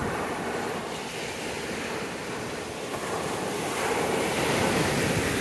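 Strong Caribbean surf breaking and washing up the beach, a steady rush that swells louder past the middle, with wind buffeting the microphone.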